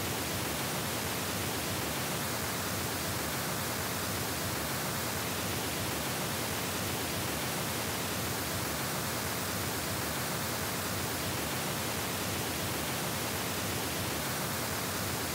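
Pink noise test signal, high-pass filtered at 80 Hz, playing as a steady, even hiss. Its upper-middle tone shifts slightly for a few seconds at a time, three times.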